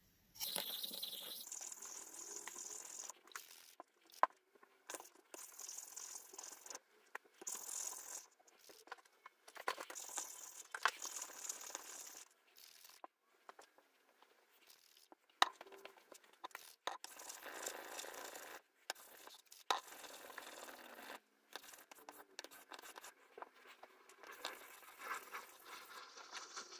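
Straight razor blade stroked back and forth across a wet 3000/8000-grit combination whetstone: a run of scraping strokes, each a second or two long with short pauses between them and an occasional small click.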